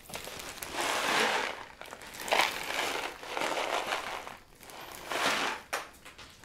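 Rock salt poured from a cardboard box onto ice in a plastic bag, a grainy rattling hiss in several pours with short breaks between, along with the plastic bag crinkling.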